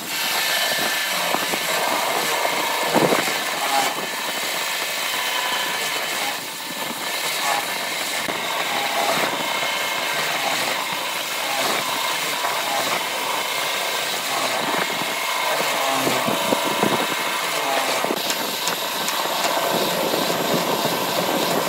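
Lathe running with a drill bit in a chuck boring into the centre of a spinning bamboo-and-epoxy turning: a steady machine run with the hiss of the bit cutting and throwing out shavings.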